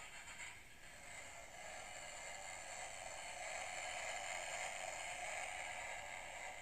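A homemade 48 V 350 W electric scooter's motor switching on and spinning up to a steady whir. It starts suddenly and grows louder over the first few seconds.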